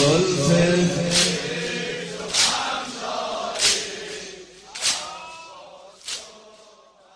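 Mourning noha fading out: male voices chanting in unison stop about two seconds in. A sharp slap of chest-beating (matam) keeps time about every 1.2 seconds and grows steadily fainter.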